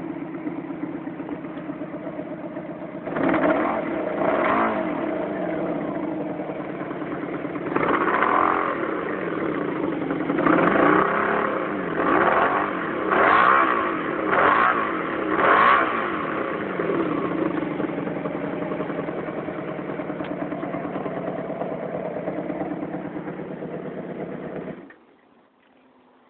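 Honda Magna V4 motorcycle engine idling and revved in a string of short throttle blips, then settling back to idle before the sound stops abruptly near the end. It runs rough, which the owner puts down to a misfire on the number 2 cylinder, whose spark plug was fouled black.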